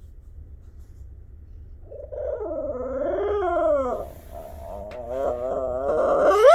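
A cat yowling: a long wavering, drawn-out meow starting about two seconds in, then a second long call that rises sharply in pitch at its end.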